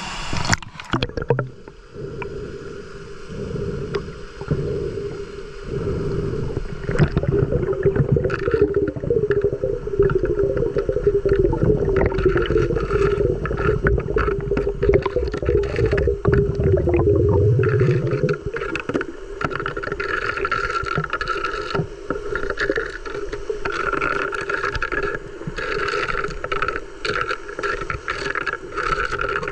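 Muffled water sound heard through a camera held underwater while diving: gurgling and sloshing with scattered small clicks and knocks.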